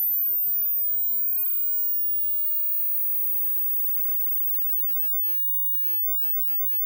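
A very high, thin electronic tone that rises slightly in pitch and fades over the first few seconds. A faint lower tone glides downward and then holds steady.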